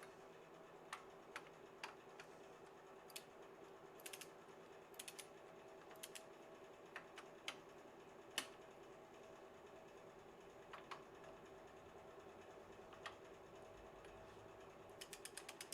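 Faint clicking of a socket ratchet wrench in short quick runs, with scattered single metal clicks, as the engine's bearing cap nuts are tightened evenly; a steady faint hum lies under it.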